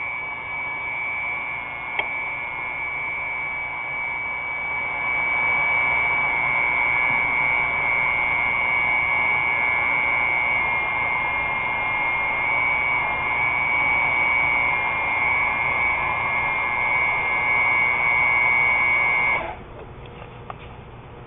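Hydraulic pump running steadily with a high whine, driving the double-cutting nut splitter's chisels into a nut. It gets louder about five seconds in and cuts off suddenly near the end.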